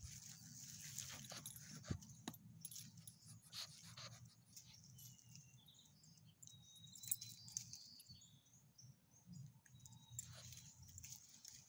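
Two small terriers scuffling on leashes in dry leaves: faint crackling of the leaves underfoot and jingling of collar tags and leash clips, with a couple of sharper clicks.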